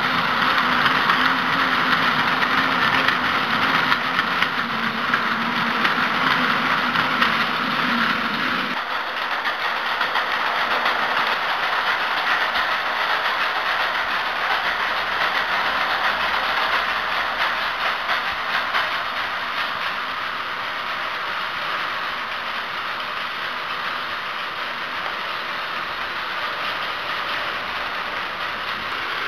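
Battery-powered Plarail toy trains running on plastic track: a steady motor hum with a busy rattling clatter of the wheels over the track. The hum cuts off about nine seconds in, while the clatter goes on.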